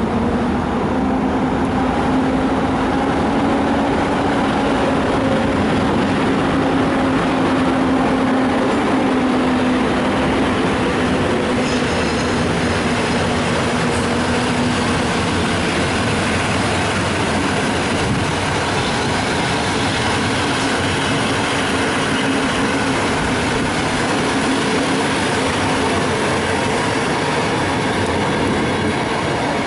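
Train running through the station with a loud, steady rumble. A low steady hum sounds over it and fades out about halfway through.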